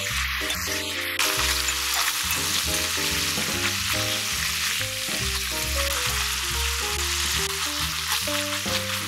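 Thinly sliced pork belly sizzling as it fries in a cast-iron pan, stirred and turned with metal tongs. The sizzle gets louder about a second in.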